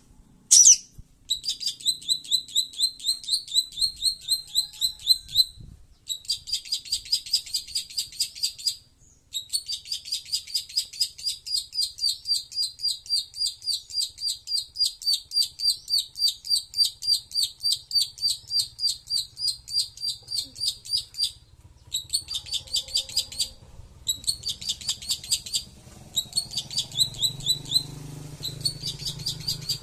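Long-tailed shrike (cendet) calling: long runs of rapid, repeated shrill notes, about five a second. They come in several bouts, the longest lasting about twelve seconds, then break into shorter bursts near the end.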